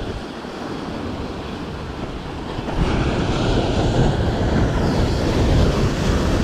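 Sea waves breaking and washing on the shore, swelling louder about three seconds in, with wind buffeting the microphone.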